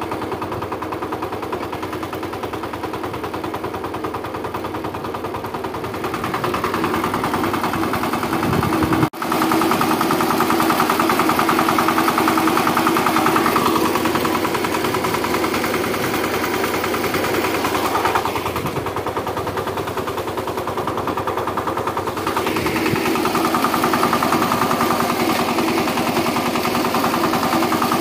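Two-wheel power tiller's single-cylinder diesel engine running steadily with a fast, even beat while pulling an implement across a ploughed field. The sound cuts out for an instant about nine seconds in, then carries on.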